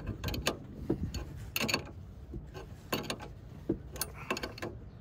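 Scattered sharp metallic clicks and small clatters of a ratchet and socket and loose parts being worked by hand in a truck's engine bay, about eight of them at uneven intervals.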